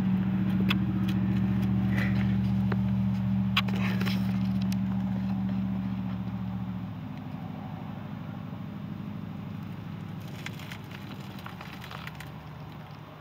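A steady low mechanical hum, like an engine or motor running, that cuts off about seven seconds in, with a few light clicks and rustles of handling over it.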